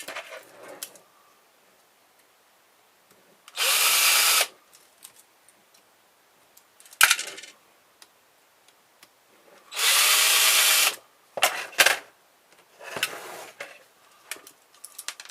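Cordless power driver running in two short bursts of about a second each, backing out screws, with a few sharp clicks and taps of metal parts between the bursts.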